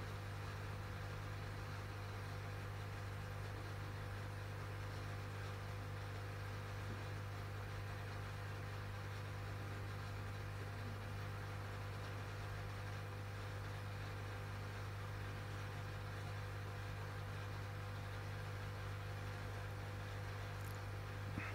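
A steady low electrical hum with a faint hiss underneath: room tone, with a faint tick near the end.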